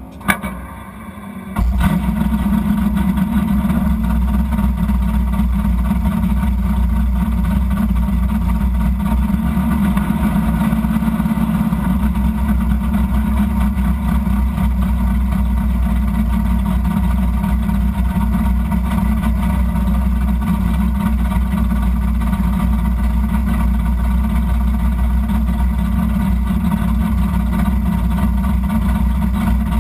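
Drag car's engine starting after a click about a second and a half in, then idling loud and steady, heard from inside the cabin.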